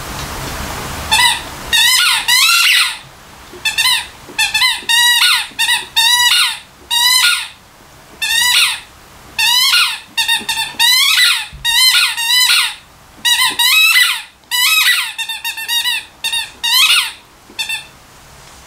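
A dog's squeaky toy squeaking over and over as a Labradoodle chews it, in irregular clusters of quick squeaks with short gaps. Each squeak wavers in pitch, and they stop about a second before the end.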